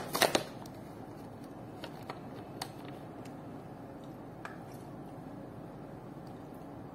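A man drinking from a plastic water bottle: a few sharp clicks at the start, then faint small clicks and wet mouth and liquid sounds over a low steady hiss.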